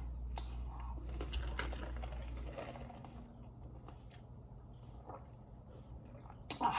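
Faint scattered clicks and smacks of someone eating close to the microphone, over a low hum that stops about two and a half seconds in.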